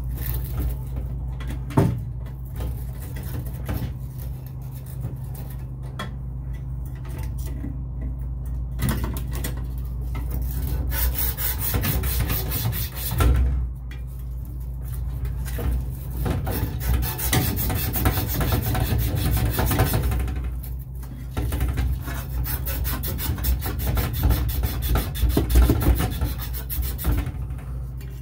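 Copper refrigerant tubing being sanded with a strip of sand cloth, rubbed back and forth in fast strokes to clean the pipe before brazing. The rubbing comes in runs with short pauses and is busiest in the second half, over a steady low hum.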